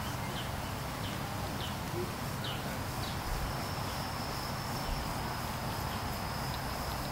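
Insects singing in a steady, high, even drone, with short chirps repeating about every half second over a low steady rumble.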